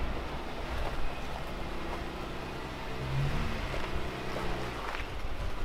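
Jeep Wrangler JK engine running at low speed as the Jeep crawls over granite rock, with a brief rise in revs about three seconds in.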